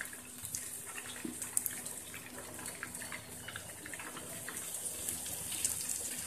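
Hot ghee bubbling and sizzling in a steel pot as thin ghevar batter deep-fries: a steady fizz with many small crackles and pops. A thin stream of batter is poured into it from above in the second half, and the sizzle grows slightly louder.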